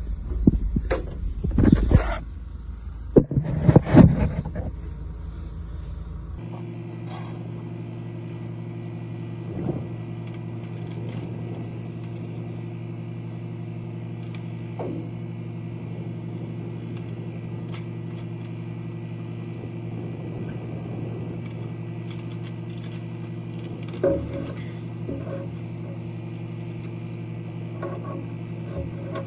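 Rough handling knocks and rustling for the first six seconds, then a steady low mechanical hum with a few faint clicks and knocks of tools and metal as new batteries are fitted into the dump truck's battery box.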